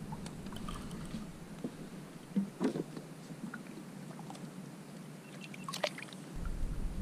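Sea water lapping and trickling against a kayak's hull, with a few short splashes about a third of the way in and again near the end. A low rumble comes in shortly before the end.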